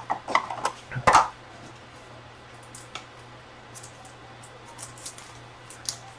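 Light clicks and rustles of trading cards and their plastic holders being handled. A cluster comes in the first second or so, then only occasional faint ticks over a steady low hum.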